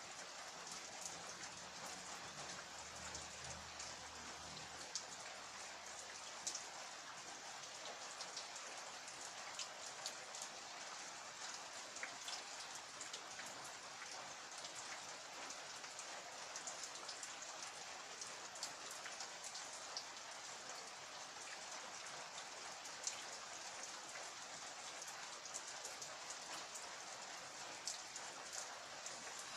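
Steady rain falling, a constant hiss with many individual drops ticking sharply throughout.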